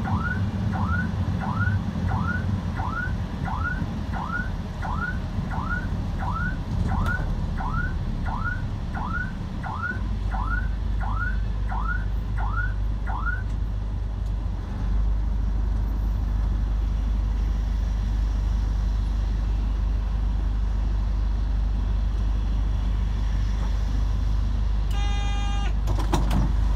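An electronic alarm whooping in short rising sweeps, about two a second, for roughly the first half, over the steady rumble and hiss of traffic on a wet road. A short beep sounds about two seconds before the end.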